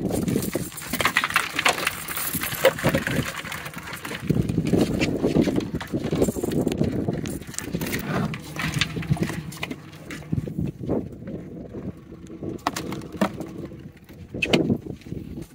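Blue crabs being shaken out of a wire crab trap onto a boat deck: rattling and scraping of wire and shells, with scattered clicks and knocks near the end.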